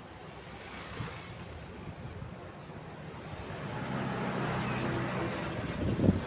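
Roadside traffic: a motor vehicle's engine hum grows louder as it draws near over the second half, with one short, sharp, loud sound just before the end.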